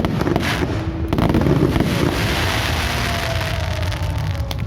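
Aerial fireworks going off: a few sharp bangs in the first second, then a dense crackling hiss, over a steady low rumble. A faint falling whistle is heard near the end.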